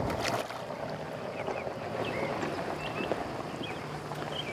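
Outdoor wind-and-water ambience at a pond's edge, with a brief splash about a quarter second in as a hooked fish thrashes at the surface beside the landing net. A few short high chirps come later.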